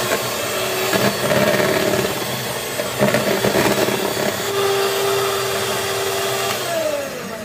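Electric hand mixer running at speed, its steel beaters churning thick, half-frozen custard ice cream in a glass bowl to beat it smooth. The motor winds down with a falling pitch near the end as it is switched off.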